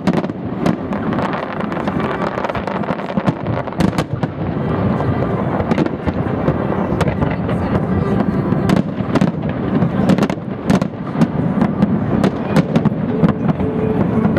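Aerial fireworks display: shells bursting one after another, many sharp bangs at irregular intervals over a continuous din.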